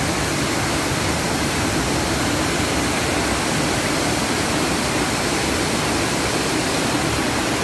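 A waterfall plunging into a rocky pool, with white water running over the rocks below: a steady, even rush of falling water.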